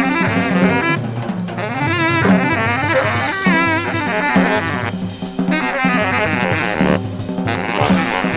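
Free jazz from a 1970s quartet of reeds, double bass and drums: saxophone and reed lines bend and waver in pitch over a low bass line and busy drums.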